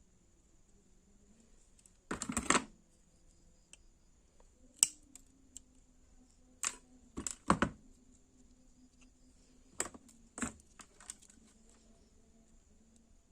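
Irregular sharp clicks and light knocks of small plastic lamp parts being handled: a quick cluster about two seconds in, then single and paired clicks every second or two.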